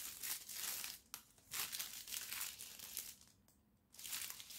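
Clear plastic bag crinkling and rustling in irregular bursts as a small wallet is worked out of it, with a short pause shortly before the end.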